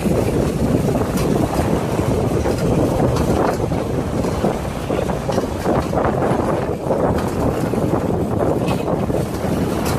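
Wind buffeting the microphone over the rumble of a moving pickup truck's engine and tyres, heard from the open rear bed.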